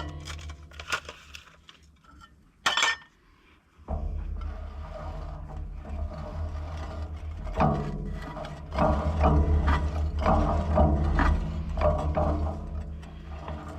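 Metal clinking and rubbing from a disc mower's end pod being worked by hand after reassembly, with a sharp knock about three seconds in and a low hum under repeated clanks from about four seconds. The parts still rub a little.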